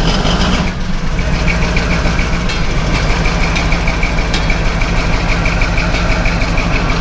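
CAT D11 bulldozer's large diesel engine just fired after a cold start from five months' sitting, settling about a second in to a steady idle. Cranking was sluggish on low battery voltage.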